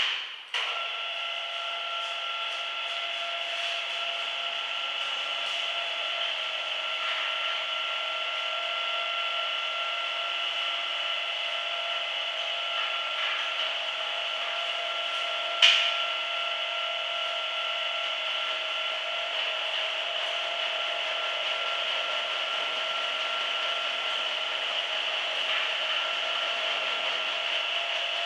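Hanta Duster 300 area-rug dusting (beating) machine running steadily with a rug inside, a steady mechanical whirr with a fixed whine. A single sharp knock about halfway through.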